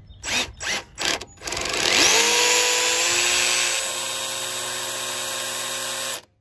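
Milwaukee 28-volt cordless drill driving a bolt on a small engine's throttle-cable bracket. It gives three short trigger blips, then spins up with a rising whine and runs steadily for about four seconds, a little quieter partway through, before stopping abruptly.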